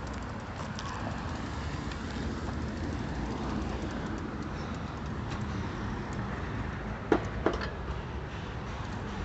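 A truck's engine running with a steady low rumble, and two sharp knocks about half a second apart a little past two-thirds of the way through.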